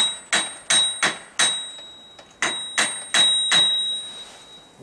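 Hammer tapping a Yamaha XS650 crankshaft flywheel half to start it onto the crankpin before pressing. About eight sharp metal-on-metal strikes come in two runs of four, with a short pause between, each leaving a high ringing tone.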